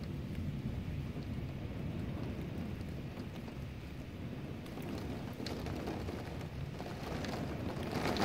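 Heavy rain and hail in a storm: a steady low rush, with scattered sharp ticks from about halfway through and a louder surge near the end.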